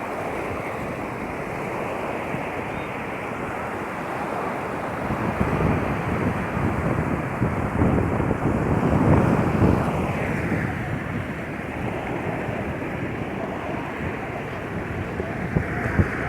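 Sea waves washing onto a beach, swelling and falling, with wind buffeting the microphone as a low rumble. The surf surges loudest in the middle.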